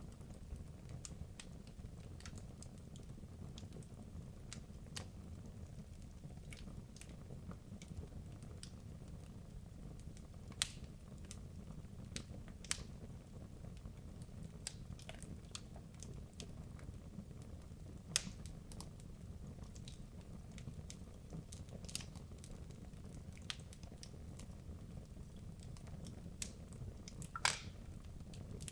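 Wood logs burning in a fireplace: a steady low rumble of the flames with irregular crackles and pops, a few sharper pops standing out, the loudest near the end.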